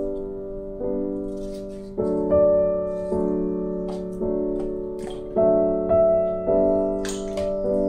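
Background piano music: gentle chords struck about once a second, each one fading before the next.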